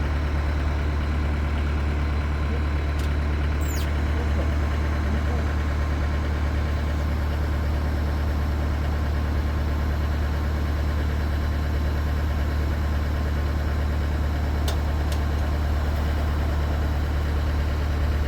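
A machine running steadily with an even low hum that does not change in level, with a couple of faint short high squeaks near the start and again near the end.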